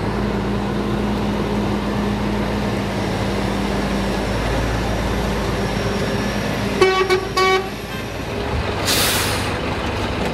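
Heavy truck tractor unit's diesel engine running steadily as it drives in and manoeuvres, with two short horn toots about seven seconds in and a sharp hiss of released air from the air brakes about two seconds later.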